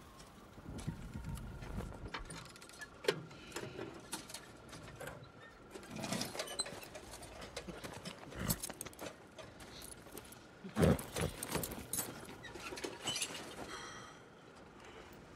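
Film foley of a man stepping down from a horse-drawn wagon and walking across hard ground: scattered footsteps, light metal clinks and jingles, and horses shifting, with a couple of heavier knocks about two-thirds of the way through.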